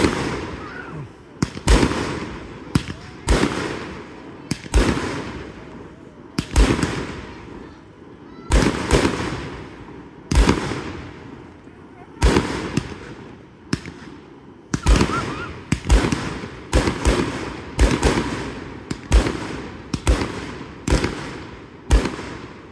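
Aerial fireworks shells bursting in quick succession, a sharp boom about once a second, each trailing off in an echo.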